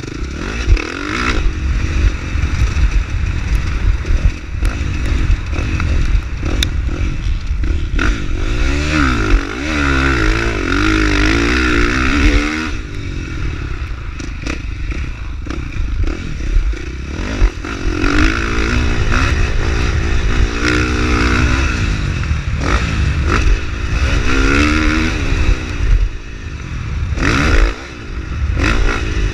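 A 450cc four-stroke motocross bike's engine being ridden, its revs climbing and falling again and again with throttle and gear changes, over a heavy low rumble.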